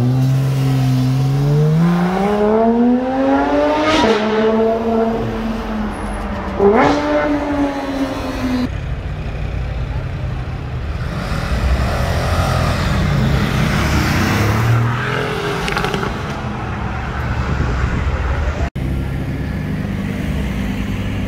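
Supercar engines. First a car accelerating hard, its engine note climbing and dropping sharply at two upshifts. Then a deep, rumbling engine among traffic noise, then an engine holding a steady low note.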